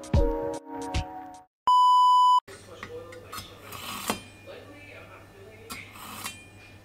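Background music cuts off about a second and a half in, then a single steady electronic beep lasts under a second. After that a chef's knife is drawn through a handheld pull-through sharpener, giving a few irregular metal scraping strokes.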